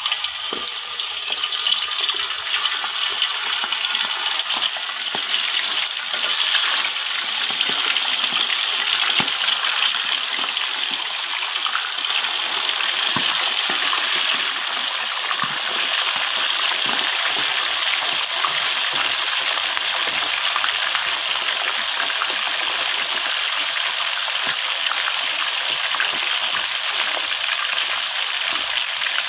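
Fish (tulingan) deep-frying in hot oil in a wok: a loud, steady sizzle with many small crackling pops, setting in as the fish goes into the oil.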